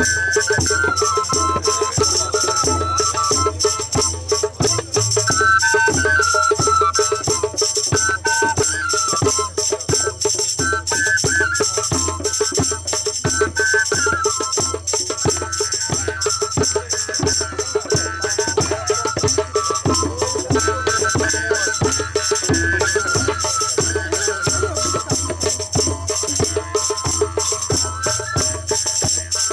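Folk-style music: a high wandering melody over a fast, steady beat, with tambourine jingles throughout.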